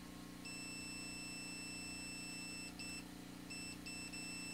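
Multimeter continuity beeper sounding a steady high beep as the test probes touch the potentiometer's terminal and resistance winding, signalling an electrical connection. Past the middle it cuts out and stutters on and off as the probe contact breaks and makes, then holds steady again.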